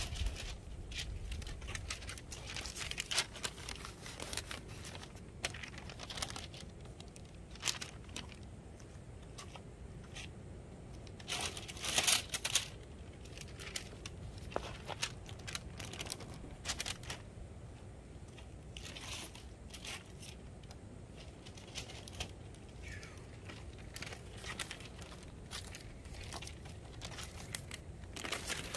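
Intermittent crinkling and tearing handling noise, with a louder cluster of crackles about twelve seconds in.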